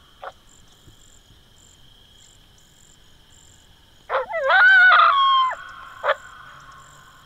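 Coyotes yipping and howling: a single sharp yip, then a loud burst of yips and wavering, gliding howls about four to five and a half seconds in, and one more yip near the end. Crickets trill steadily throughout.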